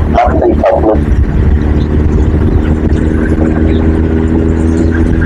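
A vehicle engine drones steadily while driving. A dog barks two or three times in the first second.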